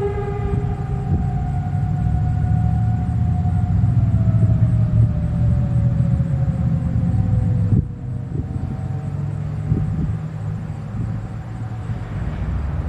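Whelen WPS-4004 electronic tornado siren winding down at the end of its full-alert cycle, its tone sliding slowly lower and fading out about eight seconds in. A steady low rumble of road traffic runs underneath.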